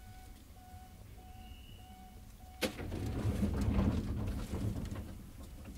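Inside a 1970s JNR commuter train standing at a station: a repeating beep, a little under twice a second, stops about two and a half seconds in with a sudden bang as the sliding doors shut. Louder rumbling and hiss follow for the rest.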